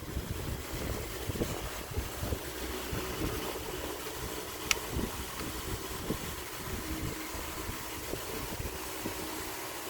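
Light knocks and handling noises of steering-column parts being lined up and fitted by hand, with one sharp click about five seconds in, over a steady low hum.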